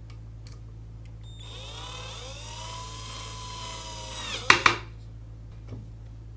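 Cordless drill-driver driving a screw into wood. The motor whine rises in pitch as the trigger is squeezed, runs steadily for about three seconds, then winds down. Two sharp loud clicks follow just after it stops.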